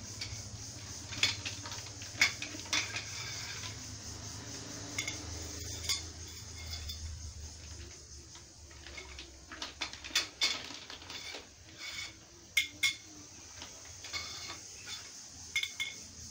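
Black carbon steel wardrobe tubes clinking and knocking against each other and the tiled floor as they are handled and laid out, in a dozen or so sharp, irregular clinks.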